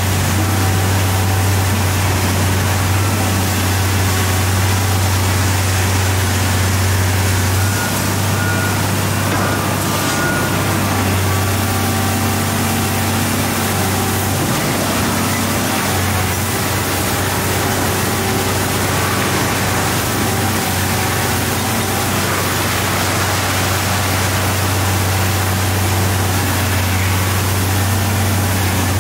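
Komatsu PC1250 excavator's six-cylinder diesel engine running steadily, a deep constant drone with a steady hiss over it, the level dipping slightly about eight seconds in.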